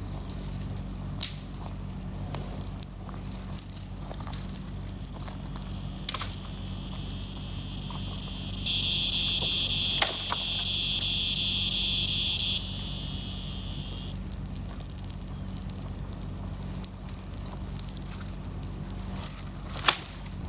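Kubota KX71-3 mini excavator's diesel engine running steadily, with scattered snaps and cracks of brush. A loud high buzzing whine rises over it for about four seconds around the middle.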